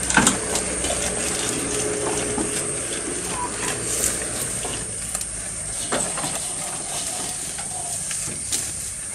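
Goats tearing and chewing fresh green grass: a steady, irregular crackle of crunching and rustling stems, over a steady high-pitched hiss.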